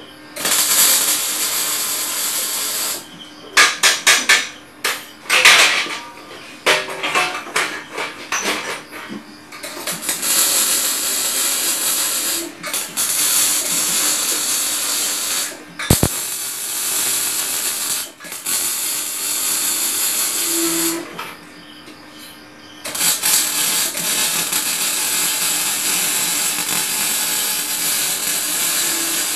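Electric arc welding on steel chair frames: a steady hissing in runs of several seconds, broken off by short pauses. A string of sharp clicks and metal knocks falls between about 3 and 9 seconds in.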